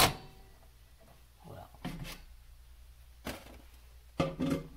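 A few sharp knocks and clatters of kitchen items and a cabinet being handled, the loudest right at the start and a cluster near the end.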